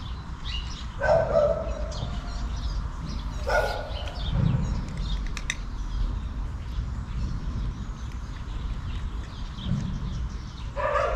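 A cat meows, once about a second in, again a couple of seconds later, and a third time at the very end. Small birds chirp faintly in the background.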